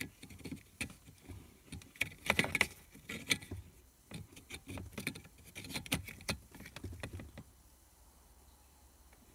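Irregular plastic clicks and rattles as an ELM327 Wi-Fi OBD-II adapter is handled and pushed into the car's OBD-II diagnostic port. They stop about seven and a half seconds in.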